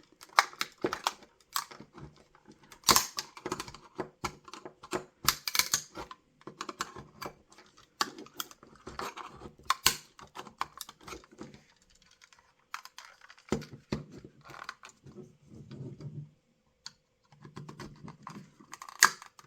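Plastic parts of a Corgi Optare Delta model bus cracking and clicking in irregular sharp snaps as the body is prised apart, with some creaking and scraping between the snaps.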